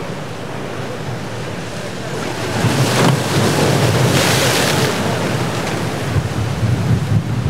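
Surf breaking against a rocky jetty, with wind buffeting the microphone. The noise swells about two and a half seconds in, and a wave crashes and splashes over the rocks beside the grounded boat about four seconds in.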